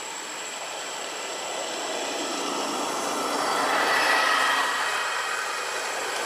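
A motor vehicle passing by: a steady rushing noise with a faint whine that swells to its loudest about four seconds in, then begins to fade.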